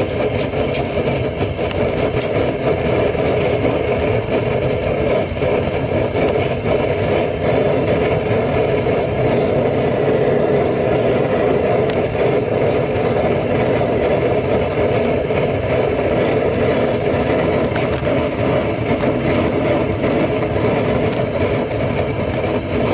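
Propane burner firing steadily into a homemade foundry furnace, a constant, unbroken rushing noise. The furnace is being run to dry out its damp refractory lining.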